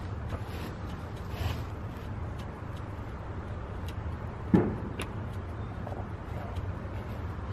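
Small metal clicks and scrapes as a bolt is started by hand into a clutch slave cylinder's mounting ear on a transmission, with one dull knock about four and a half seconds in, over a steady low hum.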